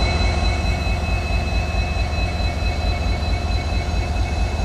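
Indian Railways WDP4B diesel-electric locomotive's 16-cylinder EMD two-stroke engine idling: a steady low rumble with a constant high whine over it.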